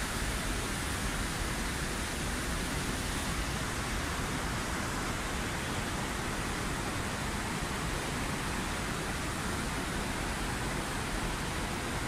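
Steady rushing of a whitewater mountain stream cascading over rocks below a waterfall.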